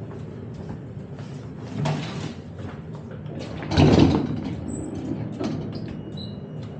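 Tram passenger doors operating, with a knock about two seconds in and the loudest noise of the door mechanism about four seconds in. Two short high electronic beeps follow near the end.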